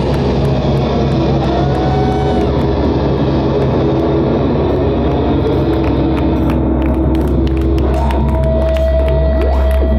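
Garage rock band playing live: drums, electric guitar and a Farfisa Fast 3 combo organ. The band thins in the second half to held organ and guitar tones, with sliding pitch swoops near the end.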